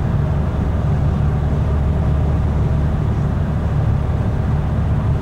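Steady low rumble of a car's engine, tyres and road noise heard inside the cabin while cruising on a motorway.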